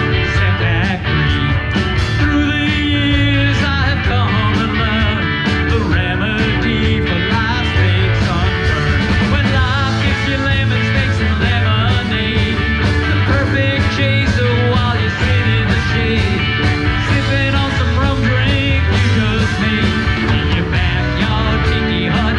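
Live rock band playing, with electric guitars over a steady drum beat.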